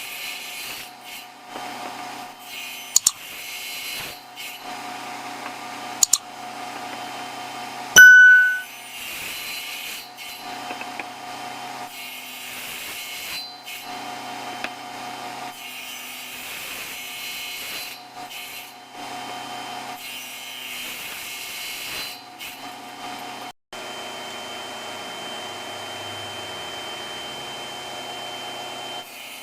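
Table saw cutting wood to form tenons, a steady run that swells and eases with each pass. A couple of sharp clicks come in the first few seconds, then a single loud metallic ding about eight seconds in.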